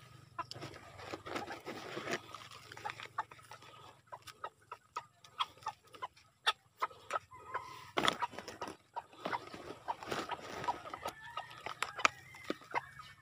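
Chickens clucking, with short calls mostly in the second half, over many sharp crackles and taps as soil is handled in plastic plant pots.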